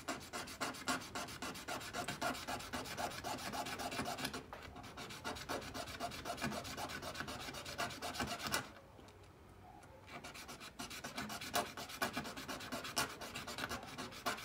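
Small hand file rasping back and forth on a brass spacer in quick repeated strokes, shortening it so the hub pivots smoothly without slop. The filing stops briefly just past the middle, then starts again.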